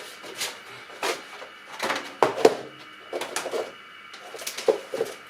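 Handling noises of a moisture-absorber container: a string of short, irregular knocks, clicks and rustles.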